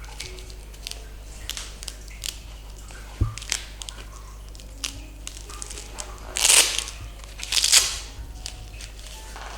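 Rustling and crinkling as the patient is handled on the treatment table during manual therapy, with scattered light clicks, a soft thump about three seconds in, and two louder rustles around six and a half and seven and a half seconds in.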